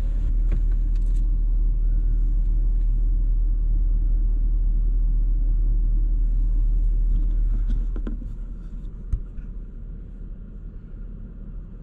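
Low, steady rumble inside a parked car's cabin, which drops to a quieter hum about eight seconds in, with a single click shortly after.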